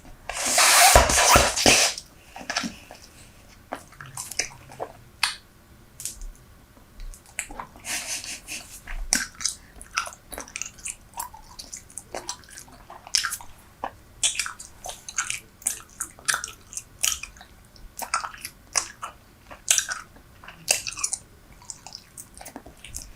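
Super Bubble bubble gum being chewed close to the microphone: irregular wet clicks and smacks. A louder noisy burst lasting about a second and a half comes near the start.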